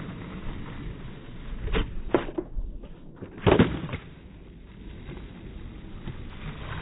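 Skateboard wheels rolling on asphalt during a flatground trick: sharp knocks of the board's tail and deck about two seconds in, then the loudest clack about three and a half seconds in as the board lands, and the wheels roll on.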